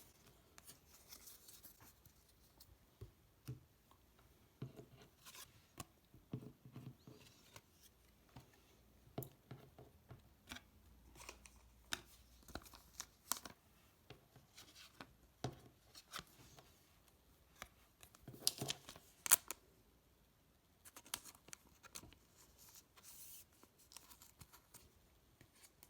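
Football trading cards and their plastic packaging being handled: scattered light scrapes, rustles and clicks, with a louder cluster of scraping about three quarters of the way through.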